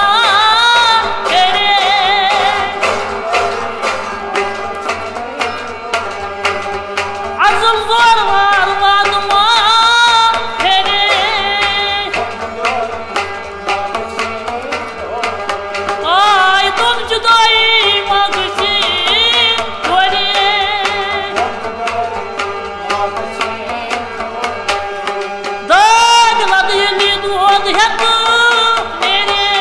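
Kashmiri folk song: male voices singing over a rabab, sarangi and harmonium, with a clay pot drum (matka) struck by hand keeping a steady rhythm.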